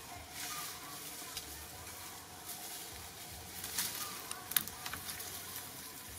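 Dry leaf litter rustling and crackling under shifting macaques, with a cluster of sharp clicks about four seconds in.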